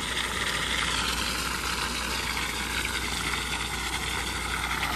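Small gas engine running steadily, with an even hiss over it as puddled water is sucked up off the paving.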